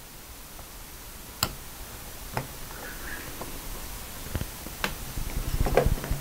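Small clicks and taps from a lens spanner wrench being lined up and handled, a handful of separate sharp clicks about a second apart. Near the end comes a quick run of soft knocks as the camera's lens and shutter assembly is handled.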